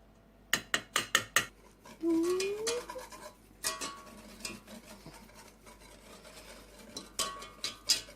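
A kitchen utensil clinking and scraping against a mixing bowl while the batter is stirred, in quick runs of taps, with a short rising squeak about two seconds in.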